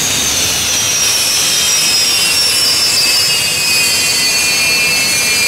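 Sukhoi Su-30MKI fighter's twin jet engines running as it taxis: a loud, steady rush with a high whine of several tones that slowly falls in pitch.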